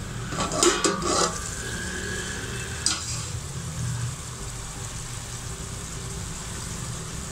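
A metal pot lid is lifted and clanks a few times in the first second or so, with one more knock about three seconds in. Under it, a potato and green-bean curry sizzles and bubbles steadily in the open pot as its water cooks down.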